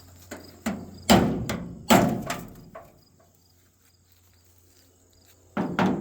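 Metal truck toolbox lid and latch being worked open: a run of sharp knocks and clunks in the first three seconds, the loudest about a second and two seconds in, then a heavy double thunk near the end. The lid is sticking, taken to need grease.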